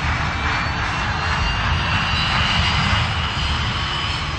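Jet engines of a business jet at takeoff power as it lifts off and climbs away: a steady loud rushing noise with a high whine over it.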